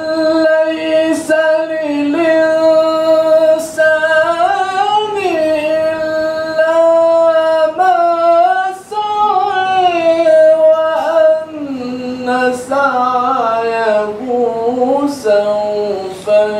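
A man reciting the Quran in melodic tarannum style into a microphone: long held notes with ornamented turns, broken by brief pauses for breath. The melody steps down to a lower pitch about two-thirds of the way through.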